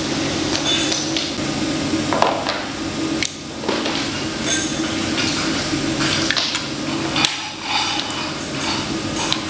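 Wooden toy food and toy-kitchen pieces clacking and tapping together in irregular knocks as they are handled, over a steady low hum.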